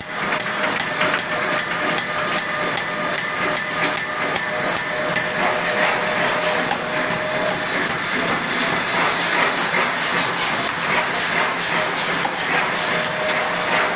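Ring rolling machine forming a red-hot metal ring into a flange: a constant loud clatter with frequent sharp metallic knocks over a steady machine hum.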